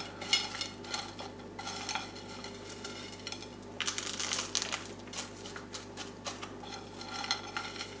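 Bark-chip orchid potting media being scooped by hand from a metal tin and dropped into a plastic pot: several short spells of clicking and rustling as the chips clatter against the tin and the pot.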